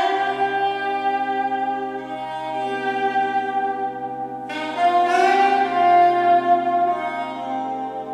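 Recorded music playing through home-built loudspeakers with Isophon P21 and Realistic 40-1374 drivers, fed by a Dynaco SCA-35 valve amplifier and picked up on a phone's microphone. Long, held melodic notes, with a fresh phrase coming in about four and a half seconds in.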